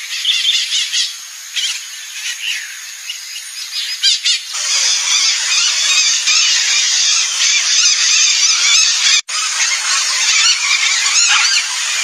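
Birdsong of whistled phrases, then about four and a half seconds in a sudden switch to a dense, harsh chorus of squawking, fitting a group of blue-and-yellow macaws calling. The sound drops out for an instant about nine seconds in.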